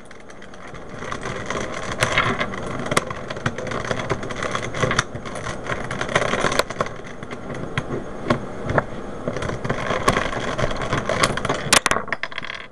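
Plastic pieces of an older-model Rubik's Cube clicking and rattling as the cube is pried apart by hand and the loose pieces are set down on a table, with a sharp snap every second or two among continuous rattling.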